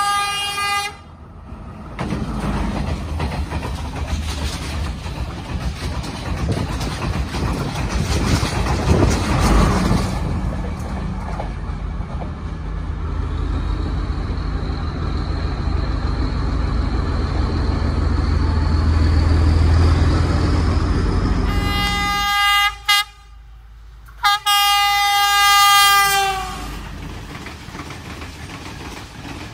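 Sri Lankan diesel multiple-unit trains. A train horn sounds briefly at the start. Then a Class S14 diesel multiple unit approaches and runs past, its diesel engine and wheels on the rails loud and steady, with a faint whine rising in pitch. Near the end the horn sounds again, one short blast and then a long one.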